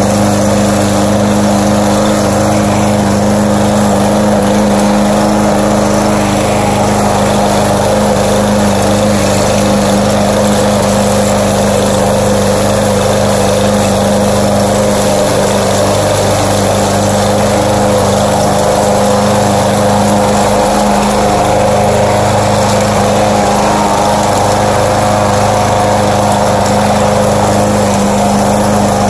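Walk-behind gasoline rotary lawn mower running at a steady engine speed while cutting grass.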